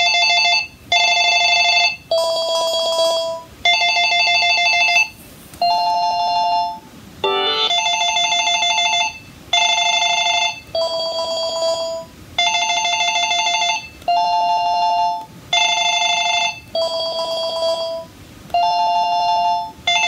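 Two Panasonic DECT cordless handsets, a KX-TGA402 and a KX-TGA101S, ringing together with their electronic ringer tones in repeating bursts of about a second. The two rings are similar but not the same: one is more like a bell, the other a cruder electronic sound.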